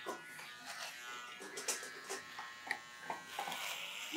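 Cordless electric personal hair trimmer buzzing steadily as it clips a Labrador's coat, with a few faint clicks scattered through.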